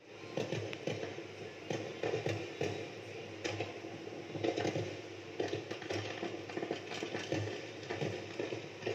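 Aerial fireworks shells bursting in a dense, uneven string of bangs, about two or three a second, over a continuous rumble.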